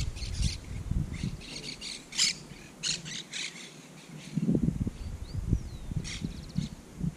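Birds squawking in quick runs of harsh calls through the first three seconds, then a few thin chirps, with some low rumbles around the middle and near the end.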